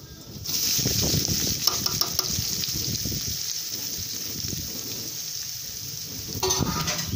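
Chopped onions and green chillies sizzling in hot oil, the sizzle starting suddenly about half a second in as they are tipped into the pan, then going on as a steady hiss with small crackles.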